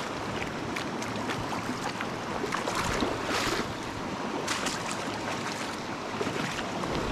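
Steady rushing of a river's flowing water, with a few brief louder swells.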